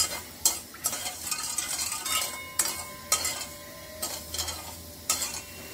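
Metal spoon stirring sugar and water in a metal pan on the stove, scraping and clinking against the pan in irregular strokes as the sugar dissolves into syrup.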